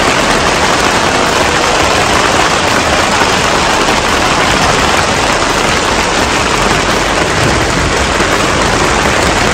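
Heavy hailstorm: hailstones pelting down steadily in a loud, dense hiss.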